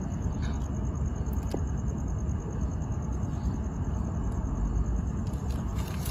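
Steady low rumble with a high, fast-pulsing insect trill running over it, and a couple of faint clicks about a second in.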